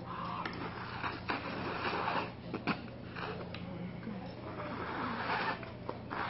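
Noodles being slurped in several hissing bursts, with a few sharp clicks of chopsticks against a bowl and a steady low hum underneath.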